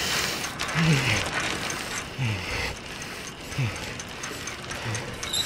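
Cycle rickshaw's chain and sprocket clicking steadily as it is pedalled, with a low falling sound about every second and a half.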